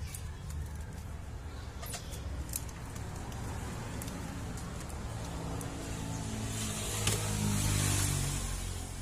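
A motor vehicle passing, its engine rising to a peak about seven to eight seconds in and then fading, over a steady low rumble. Small clicks and taps come from the plastic and metal parts of a DVD player's disc loader being handled as its motor is taken out.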